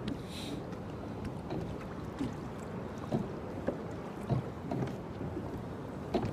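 Small waves lapping against a kayak's hull, with scattered soft knocks, over light wind noise on the microphone.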